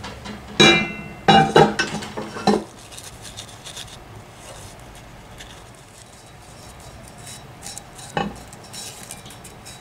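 Cast iron cookware clanking as the pans are handled and shifted: several ringing knocks in the first three seconds, then low handling and rubbing noise, and one more knock near the end.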